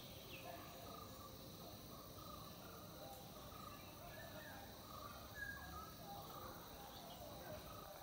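Faint outdoor pond ambience: a steady hiss with scattered short, distant bird chirps.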